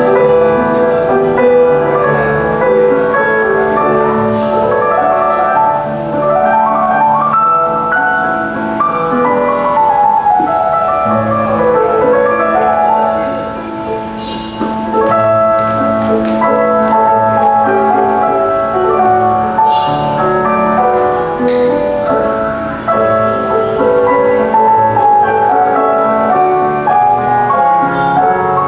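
Piano music, with quick runs of notes up and down the keyboard.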